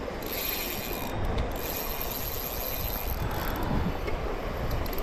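Spinning fishing reel's mechanism clicking as the line is worked.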